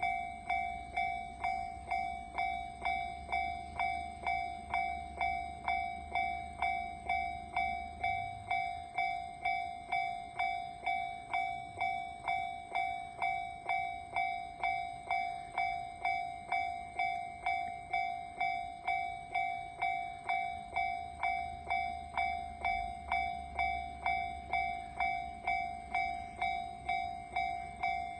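Japanese railway level crossing alarm ringing, an electronic bell tone struck over and over at about two a second, the warning that a train is approaching.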